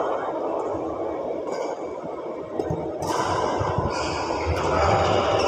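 Badminton being played in a large indoor hall: a few short clicks from racket strokes and footsteps on the court over steady background noise, which grows louder about three seconds in.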